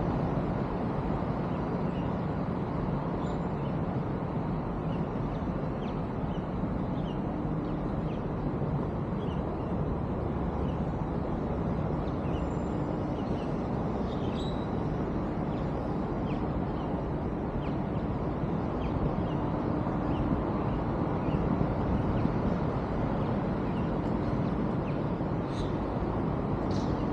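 Steady low outdoor rumble with a faint hum, and scattered short high bird chirps.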